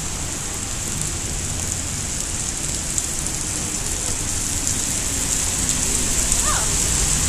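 Heavy rain pouring down steadily onto pavement and trees, growing slightly louder near the end.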